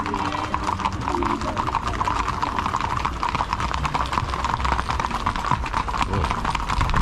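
Horses' hooves clip-clopping as a group of ridden horses moves along, many hoofbeats overlapping in a quick, steady patter.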